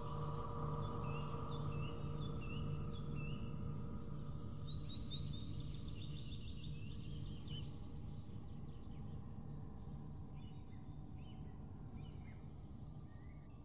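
Birdsong ambience: small birds giving repeated short chirps and quick trills over a steady low hum and sustained tones, slowly fading.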